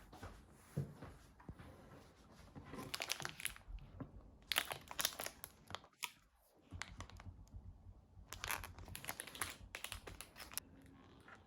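Plastic wrapper being torn open and crinkled, in quiet crackly bursts with a short pause in the middle.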